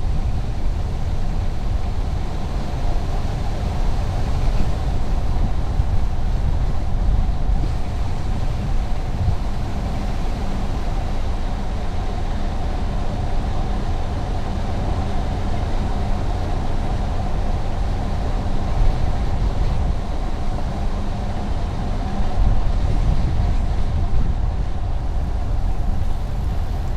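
Car driving at a steady speed: a continuous low rumble of tyre and engine noise with a steady hum on top.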